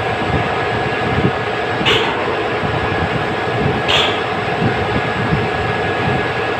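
Steady, loud machinery noise with short hisses about two seconds apart, near the start and about halfway through.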